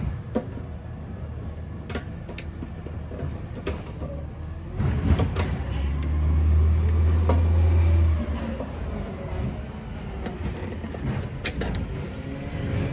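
Low rumble of a motor vehicle that swells loudest in the middle and then fades back. Scattered sharp clicks and taps of the hose and its plastic fitting being worked loose by hand and with a tool sound over it.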